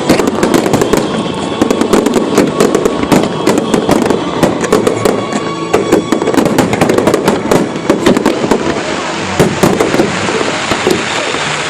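Aerial fireworks going off in a dense, continuous volley of rapid bangs and crackles, with no pause between bursts.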